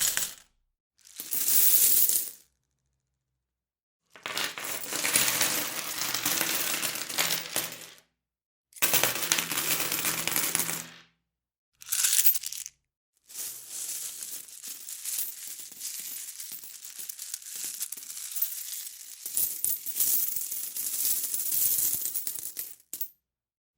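Metal coins clinking and jingling in a run of separate short recordings, each one cut off by a moment of silence: a brief one about a second in, longer ones from about 4 s and 9 s, a short one near 12 s, and a long steady stretch of coin jingling from about 13 s until shortly before the end.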